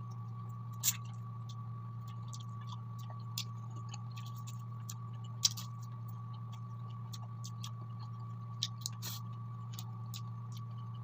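Close-up eating sounds: scattered small clicks and crackles of chewing fried chicken wings and rice, louder about a second in, about five and a half seconds in and about nine seconds in, over a steady low hum.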